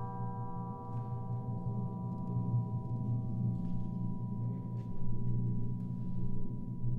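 Contemporary percussion music: a cluster of bell-like metallic tones rings on and slowly fades, over a steady low rumble, with a few soft taps.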